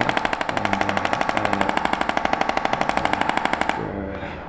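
Handheld percussion massager pulsing rapidly and evenly against the body, with a steady motor whine, then switched off a little under four seconds in.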